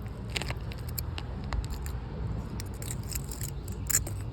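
Scattered light metallic clicks and ticks from a pair of handcuffs being handled and worked at, over a steady low rumble.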